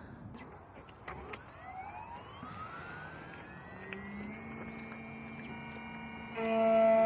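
Electric key-cutting machine's motor spinning up: a whine rising in pitch for about three seconds, then holding steady. About six seconds in it turns into a louder, steady hum.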